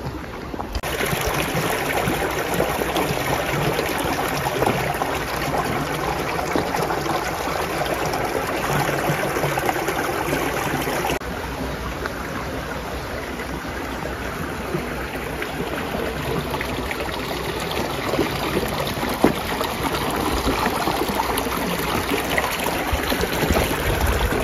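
Steady rush of running water, as from a stream, dropping slightly in level at a cut about 11 seconds in.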